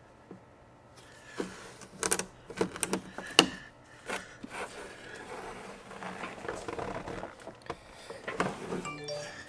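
Hand work on engine-bay parts: a series of sharp clicks and knocks of fittings and tools being handled, the loudest about three and a half seconds in, with a short falling squeak near the end.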